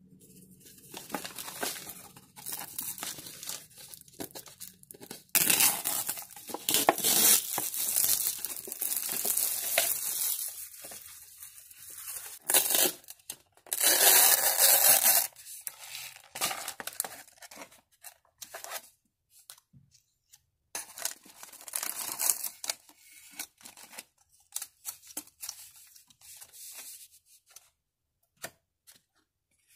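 Cup noodle packaging being torn and peeled open: long, loud stretches of tearing and crinkling in the first half, with the paper lid peeled back about fourteen seconds in. After that come lighter, scattered rustles and crinkles as the plastic sachets are handled.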